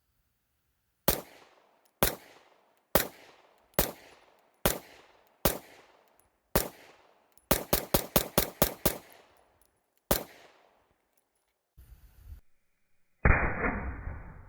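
9mm Glock 19 pistol with an HB Industries compensator being fired: about seven deliberate shots roughly a second apart, then a rapid string of about eight, then one more. Near the end comes a loud, muffled blast that fades out slowly.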